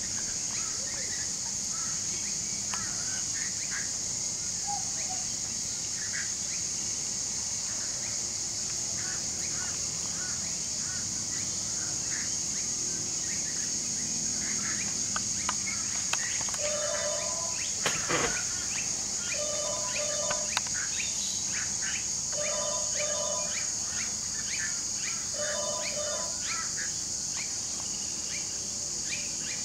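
Outdoor bird and insect ambience: a steady high insect drone with scattered short bird chirps. About halfway through, a pitched two-note call repeats four times, roughly three seconds apart, and a single sharp knock sounds between the first two.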